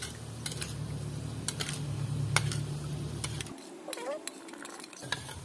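Metal spoon stirring a cornstarch slurry in a small bowl, clinking against the bowl's sides again and again, with one sharper clink about two and a half seconds in. A steady low hum runs beneath and cuts off about three and a half seconds in.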